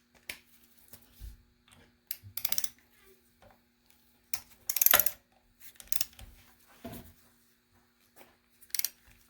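Wrench and metal parts clicking and clinking while the timing belt tensioner is tightened: scattered sharp clicks, a quick run of clicks about two and a half seconds in and a louder clatter about five seconds in, over a faint steady hum.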